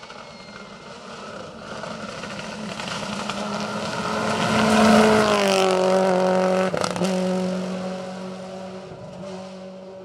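Subaru Impreza rally car's flat-four engine running hard as it approaches. The engine note grows louder and rises toward a close pass about five seconds in, then drops in pitch and fades as the car pulls away. A single sharp crack comes just before the seven-second mark.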